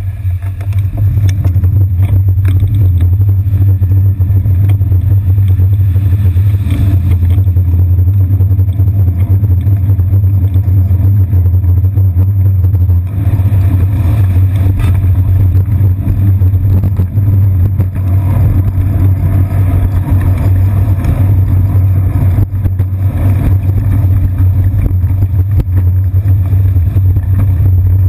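Steady, loud low rumble of wind and road vibration on the microphone of a GoPro Hero 2 mounted on the seat post of a moving bicycle.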